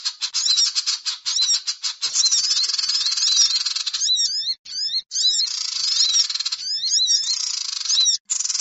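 Bird-trapping lure call for sogon birds: high, thin chirps and quick squeaky glides repeated over a dense, rasping buzz. It breaks off in several short gaps.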